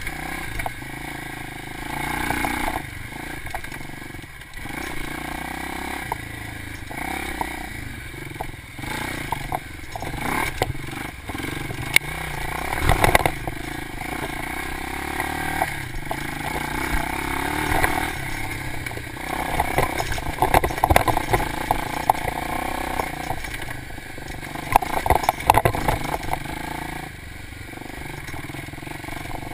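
Dirt bike engine running as the bike is ridden along a rough trail, revving up and dropping back with the throttle, with clattering knocks from the bike jolting over bumps.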